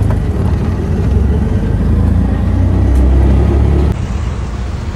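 Riding inside a moving auto-rickshaw: its engine and road noise as a loud low rumble that swells and then drops suddenly about four seconds in.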